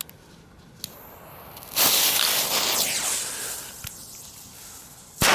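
Firecracker going off: a loud hiss about two seconds in that lasts over a second and fades, then a single sharp bang near the end.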